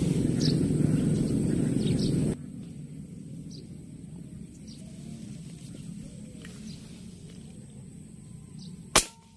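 Steady low rushing noise, like wind on the microphone, for about two seconds, then it drops away suddenly. Faint short bird chirps come over quiet marsh background, and a single sharp crack sounds near the end.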